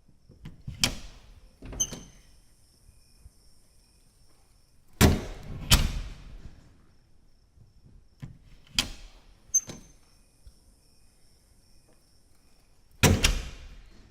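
A door opening and closing repeatedly. Pairs of sharp clicks alternate with loud thuds as the door shuts: two thuds in quick succession midway, and one more near the end.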